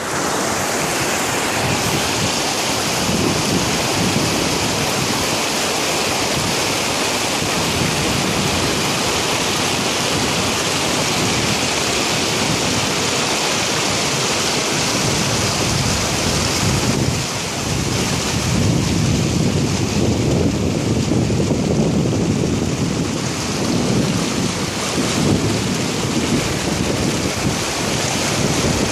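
Steady rushing of water over rocks, with wind buffeting the microphone in irregular gusts that grow stronger in the second half.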